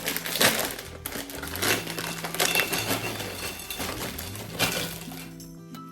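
Background music with a steady bass line, over a busy run of clicks and scrapes from ingredients being mixed in a bowl. The clicking stops shortly before the end.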